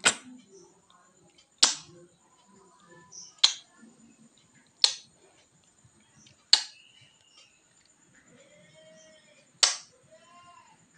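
Lips kissing a mirror's glass: six sharp kiss smacks, spaced one to three seconds apart.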